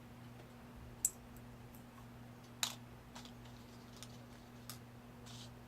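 Small, sharp metallic clicks as the pin stack of an American Lock 5200 padlock cylinder is worked out with a tool. There are two louder clicks, about a second in and a little past two and a half seconds, then several fainter ticks, over a faint steady low hum.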